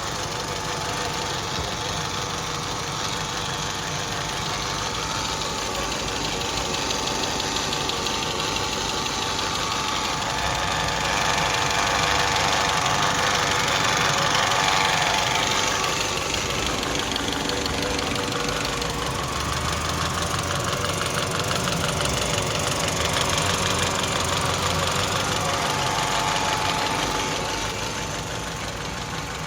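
Saab 9-3 2.0t Aero's turbocharged 2.0-litre four-cylinder engine running with a strange knocking noise: the sign of a broken timing-chain slide/guide at 300,000 km. It grows somewhat louder partway through.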